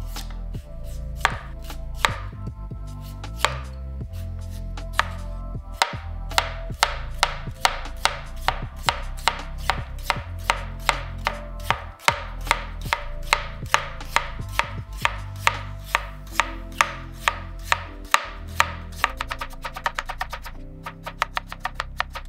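Kitchen knife slicing a raw potato on a Parker Asahi synthetic rubber cutting board: a few spaced-out knocks at first, then steady chopping at about two to three cuts a second, quickening to rapid strokes near the end.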